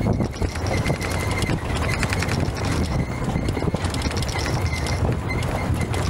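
Open safari jeep driving over a rough dirt track: a low engine and road rumble with a constant run of rattles and knocks from the vehicle jolting over the bumps.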